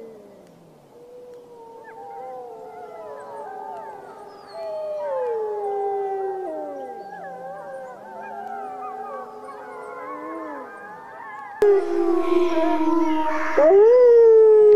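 A pack of gray wolves howling in chorus, several long howls overlapping and gliding up and down in pitch. About three quarters of the way through, the sound jumps suddenly to a louder howl that settles on a steady pitch.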